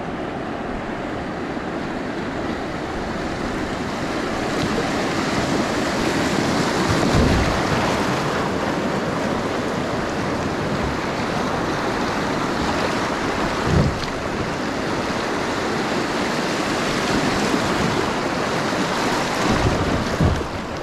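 Rushing water of a shallow river riffle around a kayak drifting through it, steady and swelling somewhat after a few seconds. A few short low thumps stand out, around a third of the way in, halfway and near the end.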